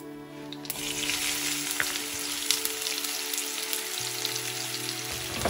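Chopped onion pieces dropped into hot oil in a nonstick frying pan, sizzling as they fry. The sizzle starts suddenly about a second in and runs on steadily with small crackles.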